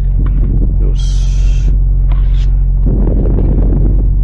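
BMW M4 Competition's 3.0-litre S58 twin-turbo straight-six idling steadily at a standstill, heard from inside the cabin. A brief hiss comes about a second in.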